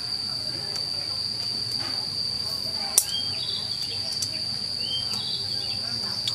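Insects keeping up a steady high-pitched drone, with a sharp click about three seconds in and a few short high chirps after it.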